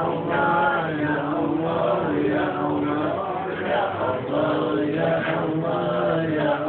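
A group of men chanting together in unison, an Islamic zikir invoking Allah, with long held notes and a slowly moving melody. It sounds thin because it was recorded on a mobile phone.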